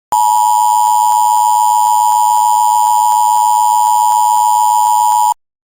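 Emergency Alert System attention signal: a loud, steady two-tone electronic beep held for about five seconds, which starts and cuts off abruptly.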